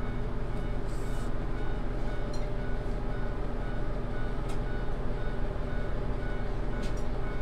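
Diesel railcar running along the line, heard from inside the car: a steady low engine and running drone with a few scattered sharp clicks.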